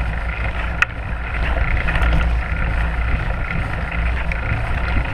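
Wind buffeting the microphone over the rumble of a fat-tire mountain bike's wide knobby tyres rolling over a dirt forest trail, with one sharp click a little under a second in.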